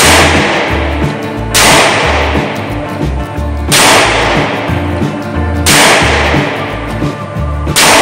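Taurus 856 Defender .38 Special revolver fired four times at a steady pace about two seconds apart, each a sharp crack with a long echoing tail in an indoor range. Background music with a steady bass line plays throughout.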